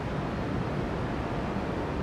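Wind buffeting the camera's microphone: a steady rushing noise with an uneven low rumble.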